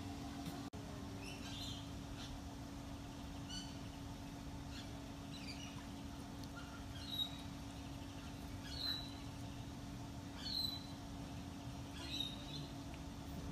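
A small bird's short, high chirp, repeated about every second and a half, over a steady low hum.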